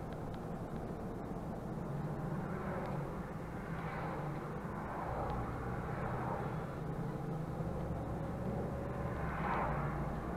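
Mercedes-Benz Conecto city bus driving at steady speed, heard from the driver's cab: a steady engine drone with tyre and road noise, swelling briefly a couple of times.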